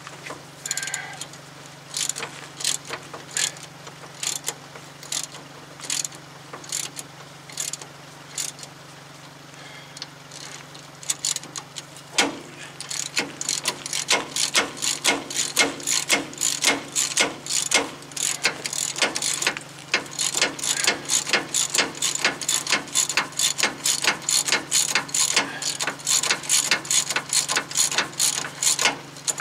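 Hand ratchet wrench clicking as it backs out a stubborn suspension bolt soaked with penetrating oil. The clicks come slowly and unevenly at first, then about twelve seconds in turn into fast, steady ratcheting of about four to five clicks a second.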